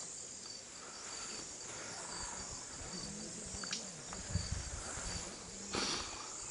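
Steady chorus of insects, likely crickets, in grassland: a high, even hiss with a faint pulsing chirp about twice a second. A few soft low knocks come through in the middle, and a short sharp rustle or click near the end.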